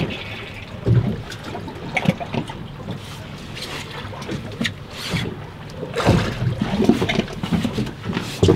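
Wind buffeting the microphone and choppy waves slapping against a small open fishing boat's hull, in uneven gusts and splashes, with a louder burst about six seconds in.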